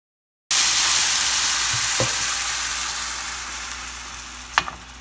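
Ginger and garlic frying in olive oil in a pan: a loud, even sizzle that starts suddenly about half a second in and slowly dies down, with a couple of light clicks.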